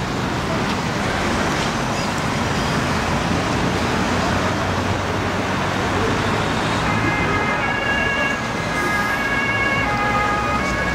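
Steady city street traffic noise; from about seven seconds in, the alternating two-tone siren of an emergency vehicle joins it, switching back and forth between two pitches.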